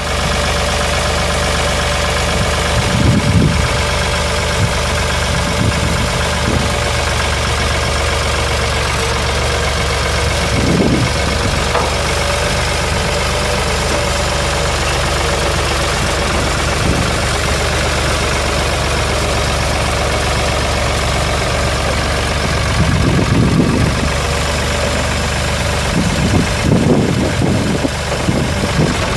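Ford 4600 tractor's three-cylinder diesel engine idling steadily with a clattery diesel knock, with a few brief low bumps now and then.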